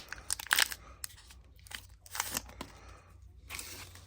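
Foil Pokémon trading-card booster pack being torn open and crinkled, in about three short rustling bursts.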